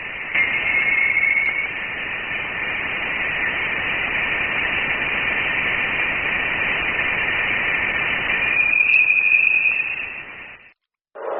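Space sound recording, the kind made from spacecraft radio data: a steady radio-like static hiss with a thin high whistling tone over it that grows brighter about half a second in and again near the end, then cuts off abruptly.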